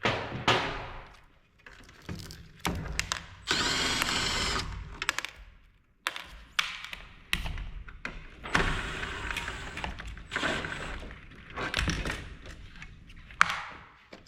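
Cordless power drill/driver whirring in two runs of a couple of seconds each, backing out screws during a monitor teardown, with clicks and knocks of tools and metal parts being handled between the runs.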